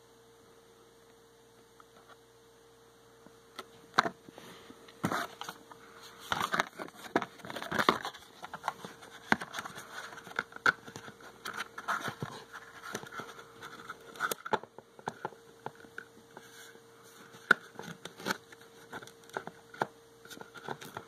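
Shoe packaging being handled: scattered taps, clicks and rustles of card and cardboard against a foam box insert, uneven and irregular, starting a few seconds in. A faint steady hum runs underneath.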